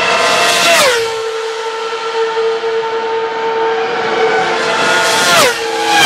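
Ferrari Formula One cars flat out on the straight: a high-revving engine scream that drops sharply in pitch as a car passes, about a second in. Two more cars go by near the end, each swooping down in pitch, with a steady high engine tone from the track in between.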